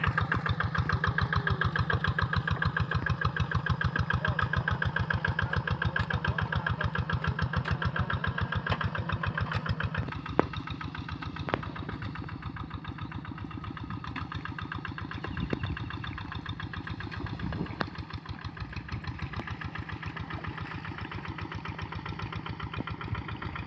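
Engine of a rice-field plough tractor running with a steady, even chug. It drops somewhat in level about ten seconds in, with a couple of sharp clicks around then.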